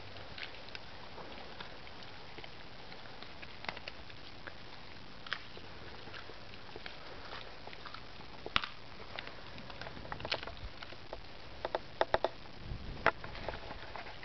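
Greyhound chewing a raw turkey neck: scattered sharp crunches and clicks of teeth on bone and gristle over a steady hiss, few at first and coming thick and fast in the last few seconds.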